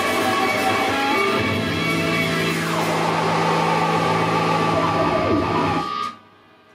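Live rock trio of electric guitars and drums playing loud, the guitars holding a long ringing note with a downward slide over the drums. The whole band stops dead together about six seconds in, ending the song.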